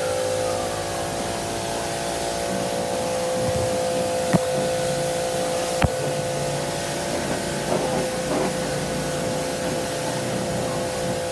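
Steady hissing spray over a steady motor hum, with two sharp clicks about four and six seconds in.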